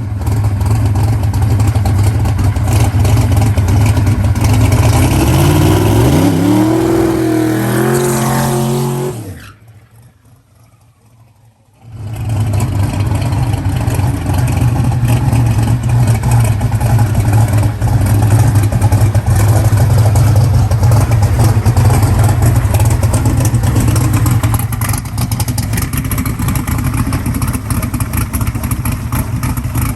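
Drag racing engine at full throttle, its pitch climbing before it cuts off about nine seconds in; loud, steady engine noise returns about twelve seconds in.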